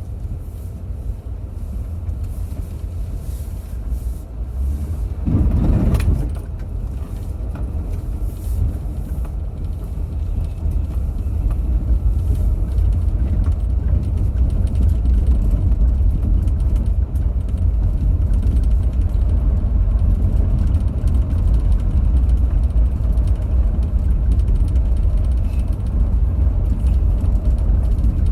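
Car driving on snowy roads, heard from inside: a steady low rumble of road and engine noise that grows a little louder in the second half, with one louder knock about six seconds in.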